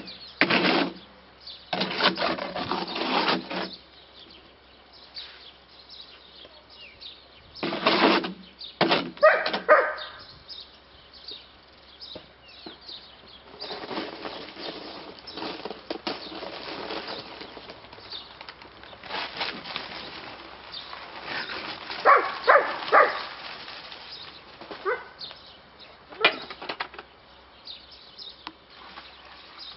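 A shovel scraping and scooping in a wheelbarrow while mixing concrete, in separate strokes with pauses between them.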